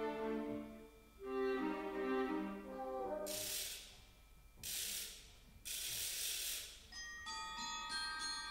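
Orchestra playing a soft pitched phrase that dies away, followed by three bright, hissing percussion swells of about a second each. Near the end a glockenspiel enters with high ringing notes.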